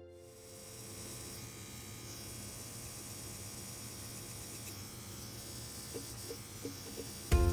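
Electric tattoo machine buzzing steadily with a low hum while it drives ink into the skin. Music starts loudly just before the end.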